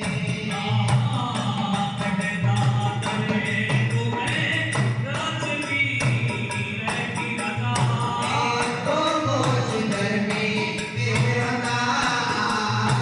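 Devotional folk bhajan music: a steady, even drum beat with jingling percussion, and a wavering melody line over it.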